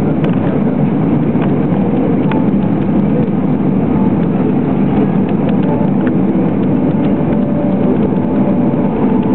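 Airbus A320 jet engine heard from inside the cabin, a loud steady rumble. Faint steady tones join it about six seconds in.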